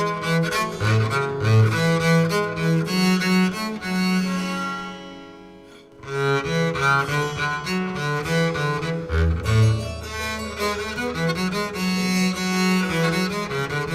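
Bowed string music with a cello to the fore, playing a melodic line of sustained notes. A phrase fades away about five seconds in, and the playing starts again a moment later, with a held low note in the second half.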